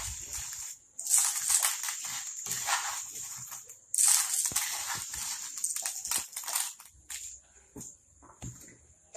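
Dry dal (split lentils) poured into a bottle: a grainy, hissing rush of falling grains in two long pours, then a few scattered ticks of single grains near the end.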